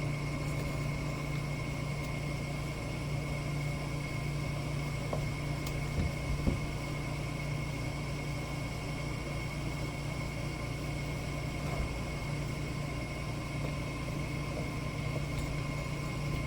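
Steady mechanical hum with a held low tone and a faint high whine, with a few light knocks about six seconds in and again near twelve seconds.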